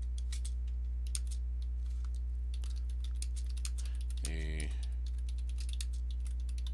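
Computer keyboard being typed on: irregular key clicks throughout, over a steady low electrical hum, with a brief murmur from a voice a little past the middle.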